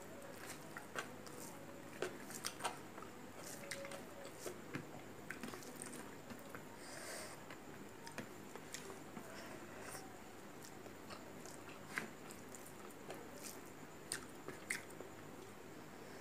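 A person chewing a mouthful of rice and curry eaten by hand, with soft wet mouth sounds and scattered short clicks and smacks.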